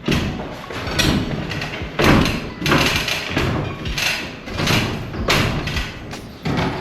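Irregular thumps and knocks of a wooden floor joist being shoved and knocked into place against the framing.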